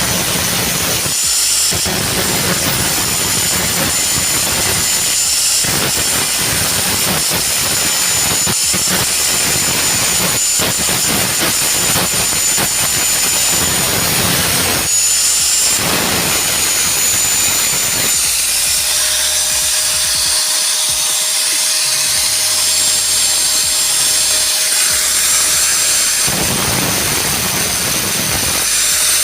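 Angle grinder grinding off the rivet heads on a washing machine spin-dryer motor's housing. It gives a continuous loud grinding noise with a high whine, broken by short dips as the disc comes off the metal, and a lighter stretch past the middle.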